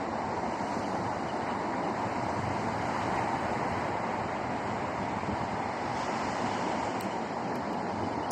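Steady wash of sea waves, with wind buffeting the microphone.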